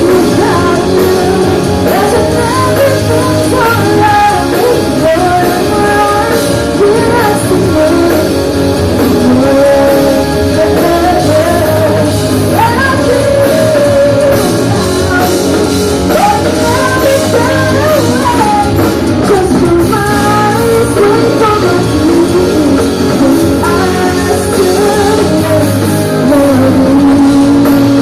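Live rock band playing a song, a lead singer's voice carrying the melody over guitar and a steady bass line.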